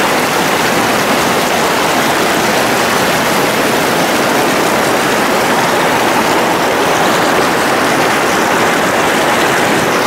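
Fast-flowing river water rushing over rocks, a steady, unbroken noise.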